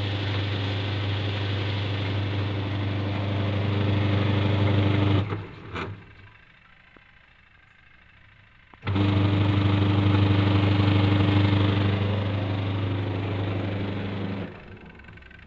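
Twin-tub washing machine's spin-dryer motor switched on twice, running about five seconds each time with a loud, steady electric hum, cut off abruptly in between with a click. The motor, after a long idle period, is taken to be worn out and due for replacement.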